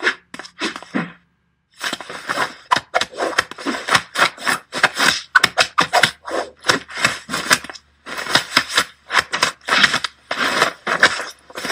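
A rapid, irregular run of slaps, scuffles and scrapes as a hand keeps swatting at a cat that pushes back. There is a short pause about a second in, then the sounds come almost without a break.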